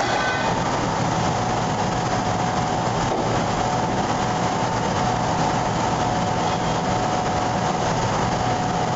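Sandblaster blasting crushed glass grit through a hose: a steady, loud hiss of air and grit with a steady whine running through it.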